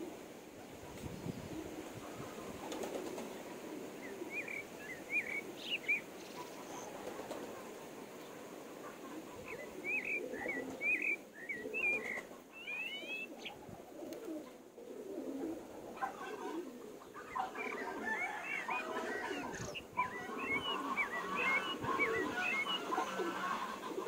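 A brood of chicks and ducklings peeping in short high chirps, scattered at first and growing busy and constant in the second half, over soft low clucking from the flock.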